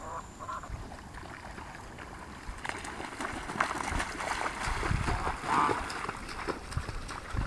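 Domestic geese giving a few short honking calls, then splashing and beating their wings through shallow water, with a person plunging into the water after them. The splashing starts a few seconds in and builds, with one more call in the middle of it.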